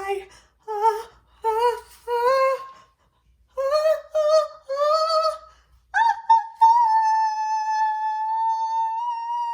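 A voice sings a short wordless, mournful tune: three short notes, then three longer sliding ones, then one long high note held steady from about six seconds in.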